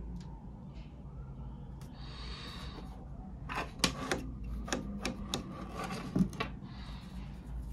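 Handling noise from an Apple USB-C power adapter and Apple Watch charging cable being picked up off a hard surface: a brief rub, then a quick run of sharp plastic clicks and taps.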